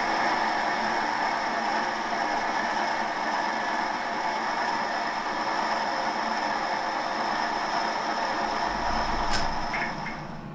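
Metal lathe running while a boring bar cuts inside a cast iron cylinder bore: a steady mechanical whir with a high whine, fading away near the end.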